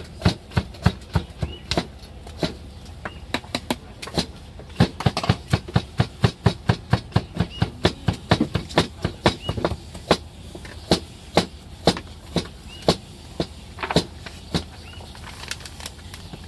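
An irregular series of sharp clicks or taps, about two to four a second, with a few faint short high chirps now and then.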